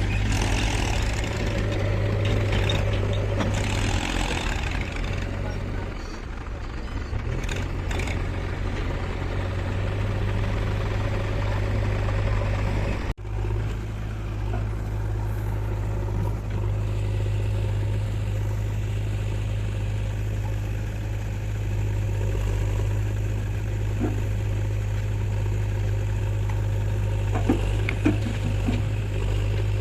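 Heavy diesel engine running steadily with a deep, even drone, broken by a sudden brief dropout about 13 seconds in. A few short knocks come near the end.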